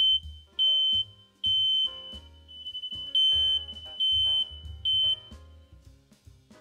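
Hardwired, daisy-chained ceiling smoke alarm sounding its test after its test button is pressed: loud high-pitched beeps in the temporal-three pattern, three beeps, a pause of about a second, then three more.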